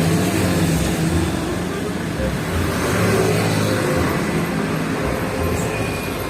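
Road traffic: large vehicle engines running with a steady low hum and road noise, and indistinct voices in the background.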